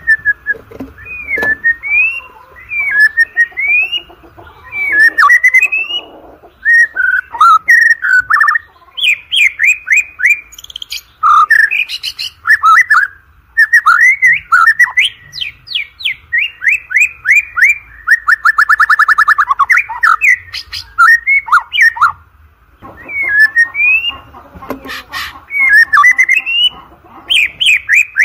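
White-rumped shama (murai batu) singing a long, varied song of loud whistled phrases, with notes sliding up and down, a fast trill about two-thirds of the way through, and a couple of brief pauses.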